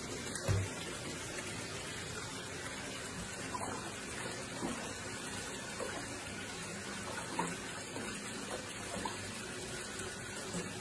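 Bath tap running into a tub already filled with water, a steady rush of water, with a single low knock about half a second in.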